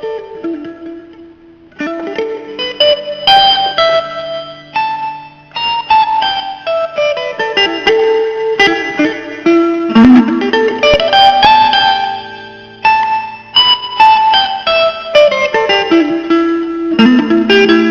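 Instrumental guitar break in a blues song: single plucked notes played in runs that keep stepping down in pitch, phrase after phrase.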